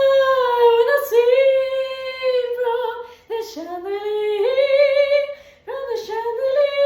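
A woman singing held notes high in head voice, in about four phrases with short breaks, some sliding up into the note. It is a thin head voice, lacking body, which the vocal coach puts down to the vocal folds not closing completely for lack of vocal resistance.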